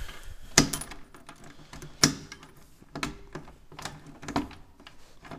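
Clicks and knocks of a boat's central storage-locker lid and its fittings being handled. Two sharp knocks come about half a second and two seconds in, then a few lighter ones.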